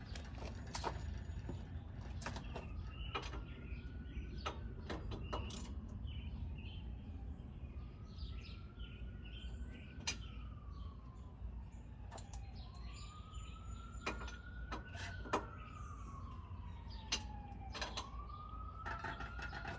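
A siren wailing, slowly rising and falling in pitch about four times. Scattered sharp clicks and a low steady rumble run underneath.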